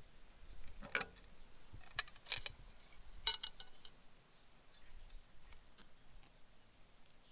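Metal cutlery clinking and tapping against dishes, four sharp ringing clinks in the first few seconds, then a few fainter ticks.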